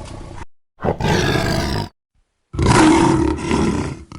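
Lion roar sound effects: a roar tailing off at the start, another about a second in, and a louder, longer roar in the second half, with abrupt dead-silent gaps between them.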